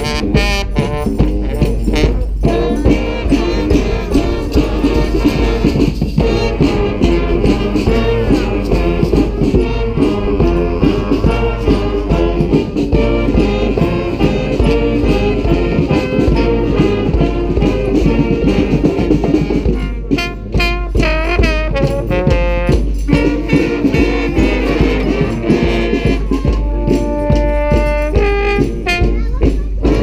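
Street brass band playing a rock-style tune: trumpets, saxophones, trombones and sousaphone over hand drum, snare and percussion. About twenty seconds in the band thins out briefly to a few horns playing wavering, bending notes, then the full band comes back in.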